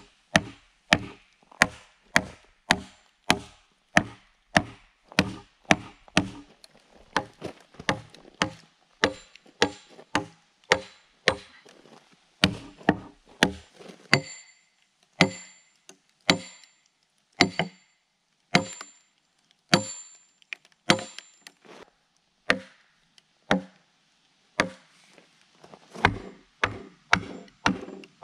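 Repeated hammer blows driving wedges into a log to split it lengthwise: a steady run of hard knocks, about one and a half to two a second, most with a low woody ring. In the middle stretch many blows carry a bright metallic ring, and after about 21 s the blows come more slowly.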